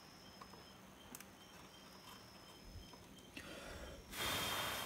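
Quiet workbench handling: a few light clicks over a faint steady hum, then a short hiss that swells near the end.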